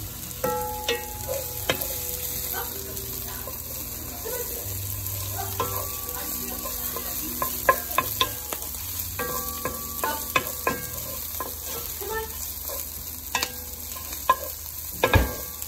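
Diced onions sizzling in a frying pan with a steady hiss, while a wooden spoon stirs and scrapes them, tapping and clicking against the pan over and over; one louder knock comes near the end.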